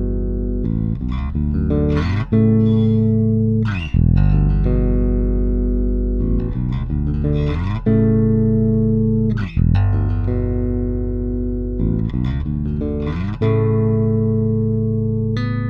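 Solo electric bass, a Fender Jazz Bass, played unaccompanied with the fingers. Notes and chords are plucked about every second or two, each with a bright attack, and left to ring.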